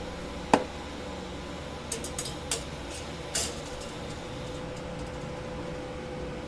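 A sharp knock, then a few light clicks and a short rattle, like metal parts and tools being handled at a welding bench, over a steady hum.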